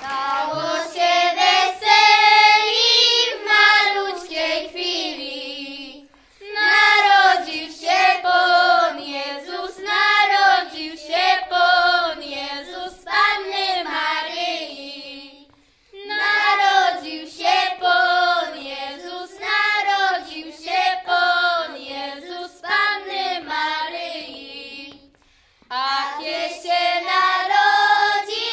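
A group of young children singing a Polish Christmas carol (pastorałka) together, in sung phrases with short breaks between them, three times.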